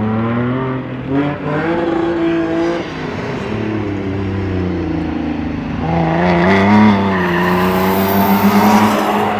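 Rally car engine revving hard on a coned course, its pitch climbing and dropping with gear changes. It is loudest from about six seconds in, with tyres squealing as the car slides round the cones near the end.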